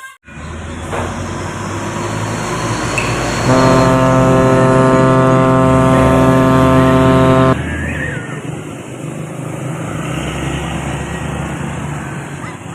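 A heavy vehicle's engine runs as it passes, and about three and a half seconds in its air horn sounds one long blast at a steady, unchanging pitch for about four seconds, then cuts off abruptly, leaving the engine noise.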